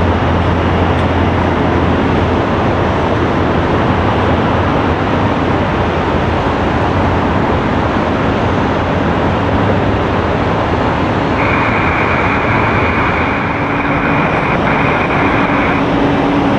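Steady jet aircraft engine noise at the airport. Through the second half comes band-limited radio hiss from an open air traffic control channel, with no speech on it.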